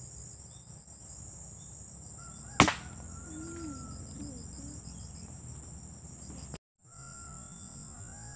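A single sharp shot from a PCP air rifle about two and a half seconds in, over steady high-pitched insect chirring.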